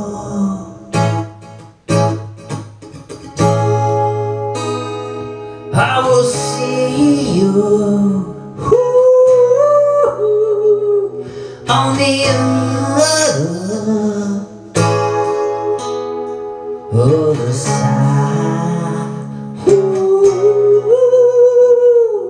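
A man singing a song to his own strummed acoustic guitar, with long held vocal notes over the chords.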